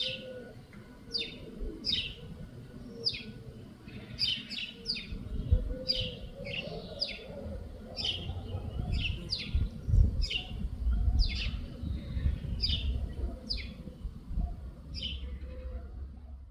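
Songbirds chirping: a steady run of short, high, downward-sliding chirps, one or two a second, over a low rumble that swells a few times.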